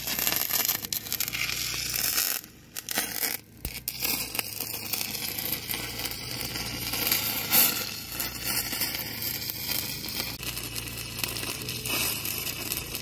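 Wire-feed welder arc crackling steadily as a bead is laid on metal square tubing, with two short breaks in the arc about two and a half and three and a half seconds in.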